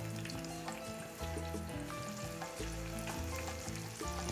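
Ripe plantains sizzling in hot oil in a frying pan, a steady crackling hiss. Background music with a bass line plays underneath.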